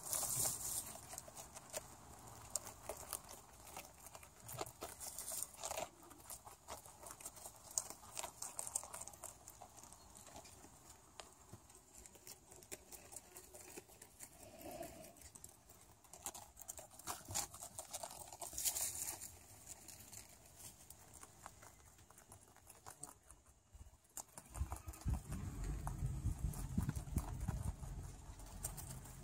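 Dwarf rabbits crunching and nibbling cabbage leaves: a dense run of small crisp crunches, clicks and rustles. Near the end a low rumble comes in under them.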